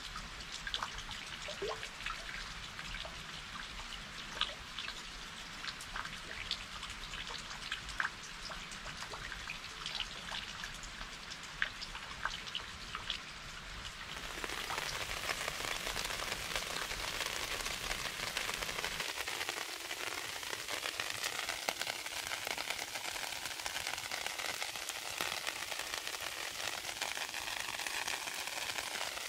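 Rain falling, with single drops heard as sharp ticks over a steady hiss. About halfway through it turns abruptly to a denser, louder, even rain hiss.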